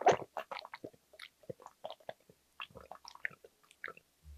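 Close-miked slurping of cold jjambbong broth drunk straight from the rim of a large bowl: a loud slurp at the start, then a run of short, wet mouth clicks and gulps.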